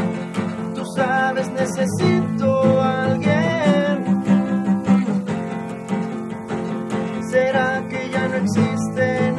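Acoustic guitar played live, chords strummed over a steady low note, with a wavering melody line on top.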